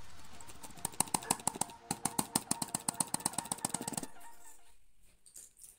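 A computer mouse clicked rapidly, about ten clicks a second, from about a second in until about four seconds in, then a few fainter clicks trailing off.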